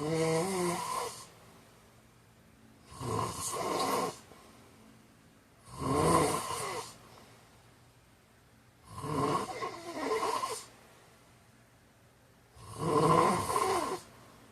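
A man snoring in a steady rhythm: five snores about three seconds apart, each lasting a second or so, with quiet between them.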